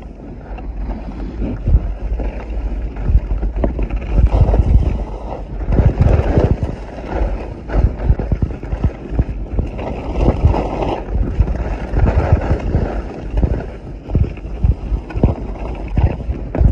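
Wind buffeting the microphone of a phone sealed in a waterproof pouch during a downhill ski run: a low, uneven rush that surges in gusts. The sliding scrape of skis on snow is mixed in.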